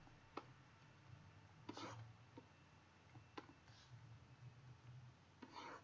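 Near silence with a few faint computer mouse clicks and some soft brief rustles.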